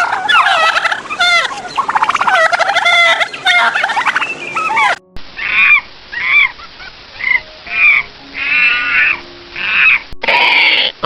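Animal calls: a dense chorus of overlapping calls, then after an abrupt cut about five seconds in, separate calls repeating roughly once a second.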